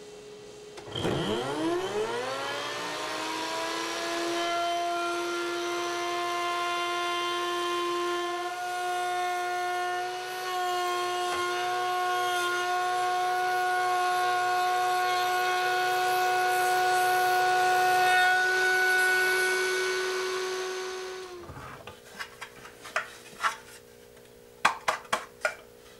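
Router table motor spinning up with a rising whine about a second in, then running steady while a 3/8-inch spiral upcut bit routes a long mortise in a cherry breadboard end. It shuts off and winds down about 21 seconds in, followed by a few knocks.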